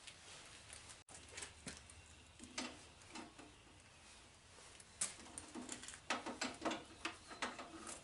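Faint scattered clicks and taps of metal parts and hand tools being handled while fitting the fence onto a combo jointer/planer, coming in a quick run over the last three seconds.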